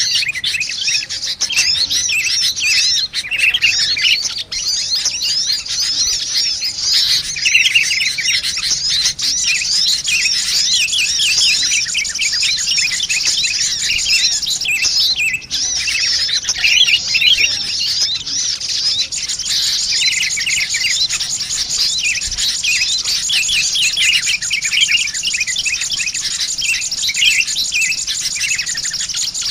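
Dense, unbroken chirping and twittering of many small birds, quick high trills overlapping one another: a bird-trapping lure recording of sunbird calls mixed with noisy sooty-headed bulbul chatter.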